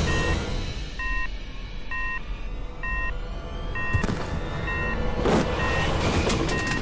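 An electronic beep repeating about once a second, each a short tone, over a low background rumble, with two brief whooshes about four and five seconds in.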